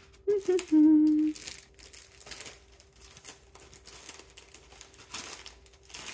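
A woman hums a short held note about a second in, then paper rustles and crinkles as sheets of paper ephemera are handled.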